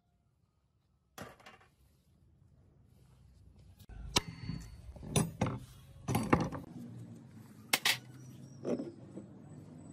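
A series of sharp metallic clinks and knocks, about half a dozen spaced roughly a second apart, over a low steady hum. It begins after about a second of silence.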